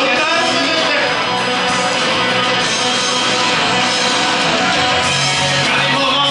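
Rock backing track with electric guitar playing over the club's PA, in a mostly instrumental stretch with little singing.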